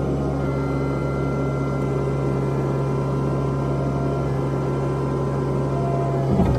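Komatsu PC128 excavator's diesel engine and hydraulics running at a steady pitch, heard from inside the cab while the boom and bucket are worked, with a brief knock near the end.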